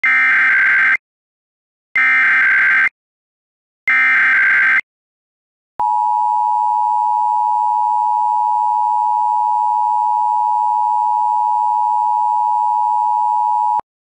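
Emergency Alert System test: three short bursts of the SAME digital header data, about two seconds apart, then about eight seconds of the steady EAS two-tone attention signal, which cuts off sharply.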